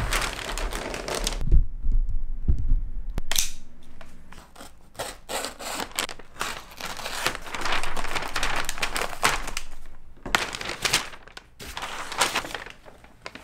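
Brown kraft paper wrapping being handled, slit open at the tape and pulled off a stretched canvas print: irregular bursts of rustling, crinkling and tearing paper, with a few low thumps in the first few seconds.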